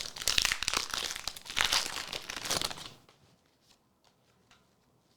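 Foil booster pack wrapper crinkling and tearing as a Pokémon card pack is opened, for about three seconds, then only faint light clicks of cards being handled.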